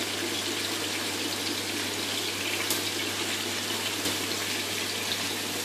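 Chicken wings sizzling in oil and soy sauce in a wok over a gas flame: a steady crackling hiss, with a few light clicks as the pieces are turned.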